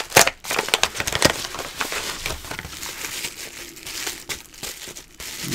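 Padded kraft-paper bubble mailer being pulled open and handled, crinkling and rustling, with the sharpest crackles in the first second and a half.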